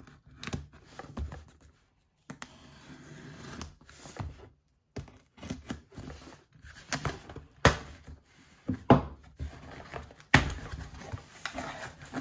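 A pocket knife blade slicing and scraping along packing tape on a cardboard box, then the cardboard being handled with scratching, rustling and several sharp knocks as the flaps are pulled open, the loudest knocks in the second half.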